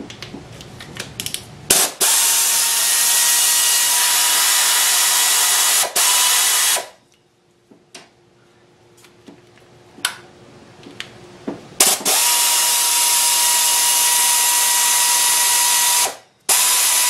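Air ratchet with a 5/16 socket running to spin out the fuel rail bolts: two long runs of hissing air with a steady whine, each followed by a short burst. Between the runs come a few seconds of light clicks.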